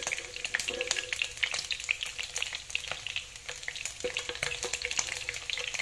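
Chunks of tuna frying in hot oil in a nonstick pan: a steady sizzle with dense crackling pops. Now and then a spatula clicks and scrapes against the pan as the pieces are moved.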